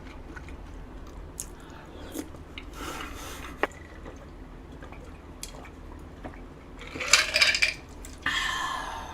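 Eating sounds: scattered light clicks of utensils against the dish, with quiet chewing. Two louder hissy bursts come near the end.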